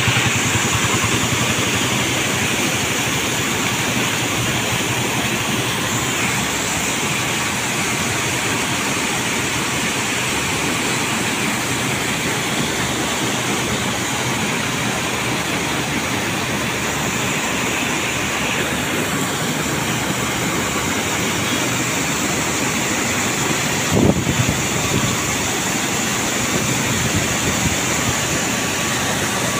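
Heavy jets of water gushing steadily from several large pump outlet pipes and crashing into a river channel, with the pump machinery running underneath. A single brief knock about twenty-four seconds in.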